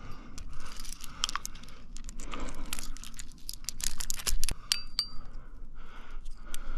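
Metal climbing gear (carabiners and protection on the rack) clinking and jangling against itself as a climber moves: irregular light metallic clicks, with a couple of short ringing clinks about five seconds in.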